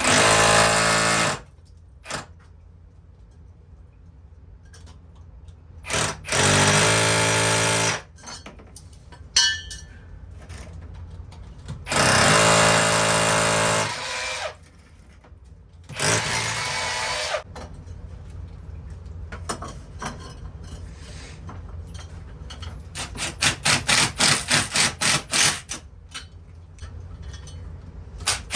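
Power drill running in four bursts of one to two seconds, each with a steady whine. Near the end comes a quick run of short trigger pulses, about four a second.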